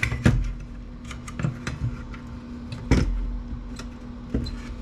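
Scattered clicks and knocks of hard plastic and metal computer parts being handled on a bench, with one louder knock about three seconds in.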